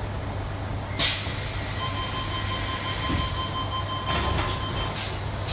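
Tangara train's passenger doors closing. A sharp hiss of air about a second in is followed by a steady warning tone for about three seconds while the doors close, then another short hiss near the end. A steady low hum from the stationary train runs underneath.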